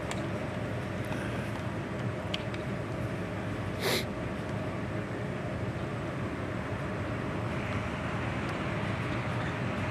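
Steady outdoor background noise, a dull rumble and hiss, with one short sharp sound about four seconds in.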